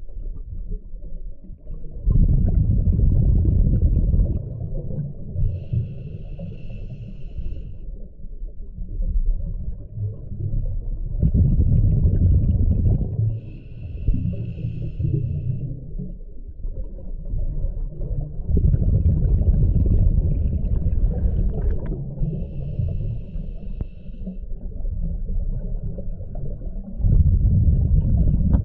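Scuba diver breathing through a regulator underwater, four breaths about eight seconds apart. Each is a short hissing inhale through the regulator, then a loud low bubbling burst of exhaled air.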